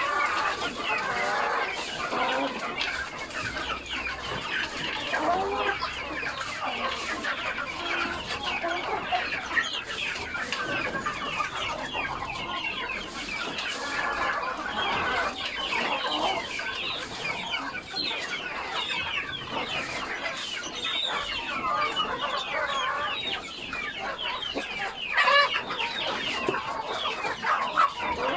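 A flock of chickens clucking and calling continuously, many birds at once and overlapping.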